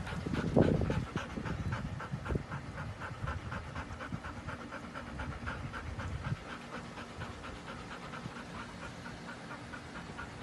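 Golden retriever panting fast and steadily, about four or five breaths a second. Under it, low rumbling noise is loudest in the first second and fades out about six seconds in.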